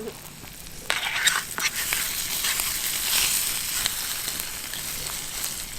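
Eggs frying in plenty of hot oil in a titanium camping pan. The sizzle swells up about a second in, after a few light clicks, and keeps going steadily.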